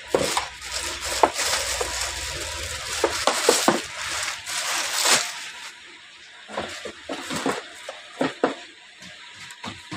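Plastic wrapping crinkling and rustling as a demolition hammer is pulled from its bag, followed by scattered knocks and clicks of the tool and its hard plastic carry case being handled.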